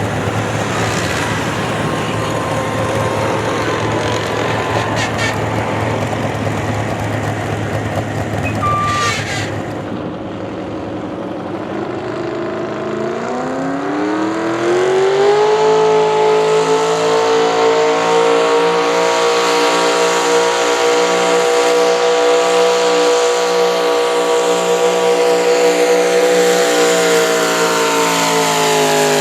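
A pulling truck's or tractor's engine at full throttle under load: rough running at first, then the pitch climbs over a few seconds about halfway through and holds high and steady, dropping off near the end as the run ends.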